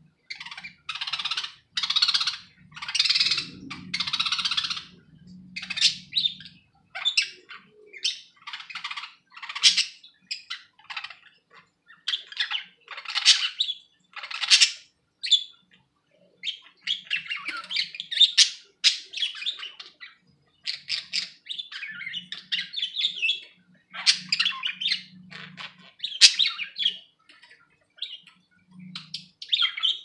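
Pet budgerigars chattering, a busy run of short chirps and squawks with brief pauses in between.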